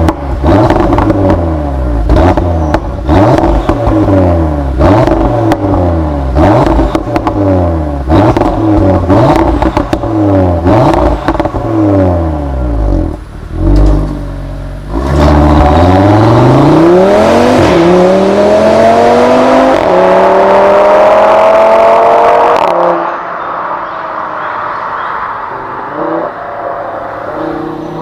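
Audi RS3's turbocharged 2.5-litre five-cylinder engine revved in quick repeated blips for the first half. Then it climbs steadily in revs for about seven seconds and drops off suddenly, settling to quieter running near the end.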